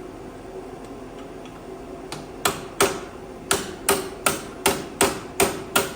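Hammer blows driving out a steel pin from the steering gearbox support of a tractor: about nine sharp metallic strikes, roughly three a second, starting about two seconds in.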